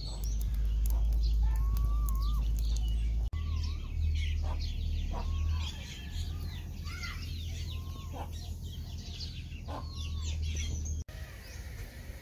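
Chickens clucking and small birds chirping, over a steady low rumble that is the loudest thing heard.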